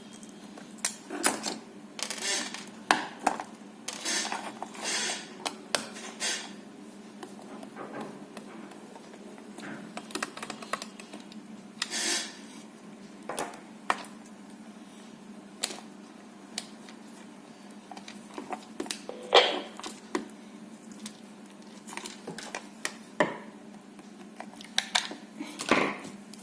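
Small clicks, clinks and short scrapes of tools and small metal nuts on a handheld radio microphone as its three nuts are undone and the casing is opened, irregular throughout.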